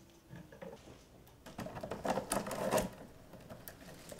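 Willow rods being worked by hand: a run of dry clicks, knocks and rustles, busiest from about a second and a half to three seconds in.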